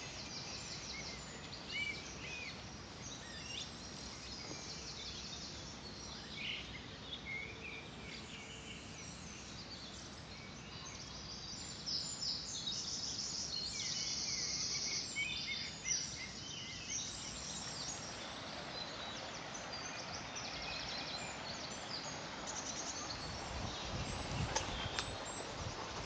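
Wild songbirds chirping and calling in woodland over a steady background hiss, the calls thickest in the first two-thirds. A few footsteps on leaf litter come near the end.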